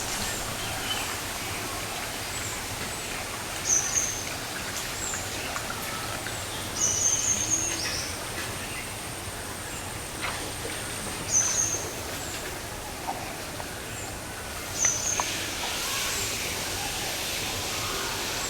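A small bird calling repeatedly in short, high, chirping phrases, about five times a few seconds apart, over steady outdoor background noise.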